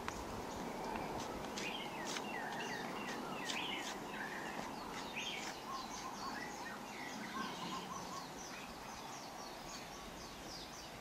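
Birds chirping and singing, many short calls one after another, over a steady background hiss.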